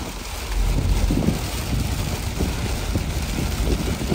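Heavy rain and wind buffeting the microphone inside an open-top convertible driving through a downpour, over a low road rumble with irregular gusty thumps.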